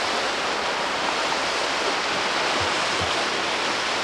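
Steady rush of a nearby creek's flowing water, an even hiss throughout. Two soft low thumps come about two and a half and three seconds in.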